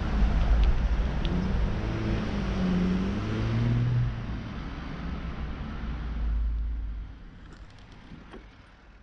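Road traffic with a passing car's engine note rising and falling, over a low rumble of wind on the microphone; it all fades away over the last two seconds.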